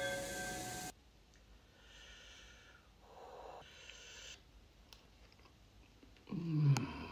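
For about the first second, a loud rushing noise with a few steady tones over the steaming bamboo basket and pot. Then a few soft breaths through the nose while eating, and near the end a short low hum falling in pitch, an appreciative "mmm".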